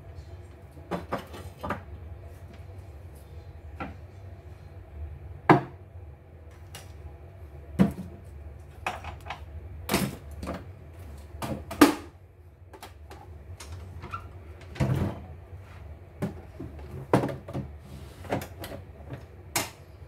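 Irregular knocks and clicks of hard plastic and metal parts being handled on a workbench, about fifteen of them, over a steady low hum.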